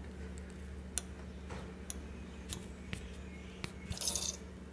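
Faint handling sounds of paracord and a brass fid: scattered light clicks and taps, with a brief scrape about four seconds in as the cord is drawn through the braid. A steady low hum runs underneath.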